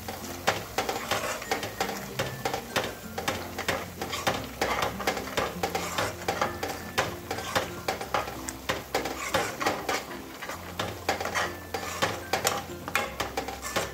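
Flat steel spatula scraping and knocking against a kadai as thick onion-tomato masala is stirred, many quick irregular scrapes and taps.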